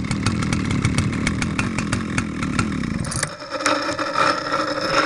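Vintage Husqvarna 2100 CD two-stroke chainsaw idling with a fast, even ticking. About three seconds in, its note jumps to a higher, steadier whine as the throttle is opened.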